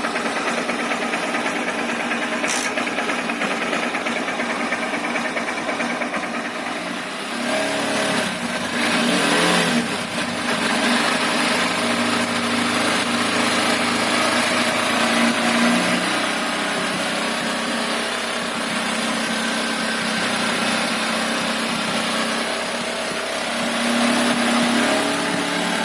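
Honda X-Blade's single-cylinder engine running, with a repetitive 'kich kich' noise that is the sign of an engine fault. Its speed and loudness rise briefly about eight seconds in and again near the end.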